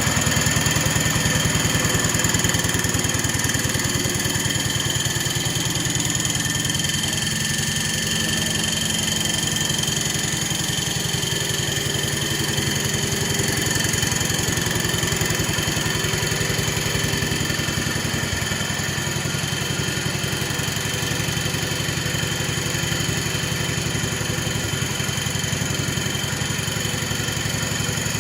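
A 1970 140 H3 garden tractor's engine running steadily while the tractor is driven, with a steady high-pitched whine over the engine note, which the owner guesses is a bearing at the rear.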